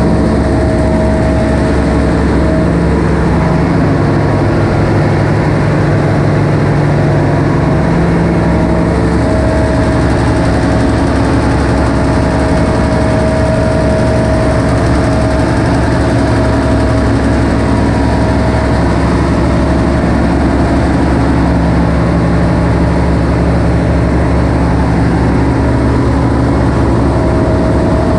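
Loud, steady din of a ship's engine room with diesel engines running. Several steady hums are layered together, and their mix changes every few seconds.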